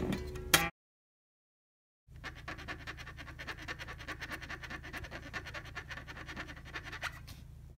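Electric bass notes cut off abruptly; after a second of silence, a dense run of rapid scratchy ticks over a steady low hum, an unusual scraping noise made on the bass strings.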